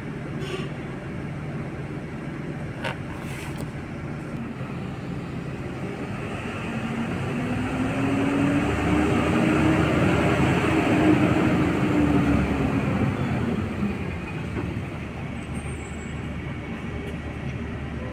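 Diesel engines of a tracked excavator and a Tata Prima tipper truck running steadily. From about six to fourteen seconds in, an engine note swells louder, rising and then falling in pitch. A couple of sharp knocks come in the first few seconds.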